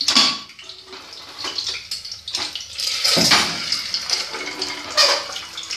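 Boiled eggs frying in hot oil inside a pressure cooker: a steady sizzle and hiss, with louder surges near the start, about three seconds in and again near the end as the lid is lifted off.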